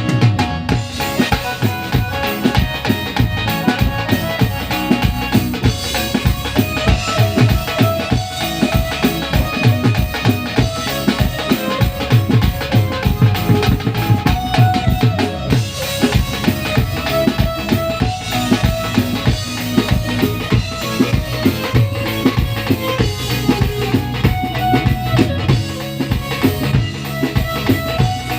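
Dance music with a fast, steady drum beat and heavy bass.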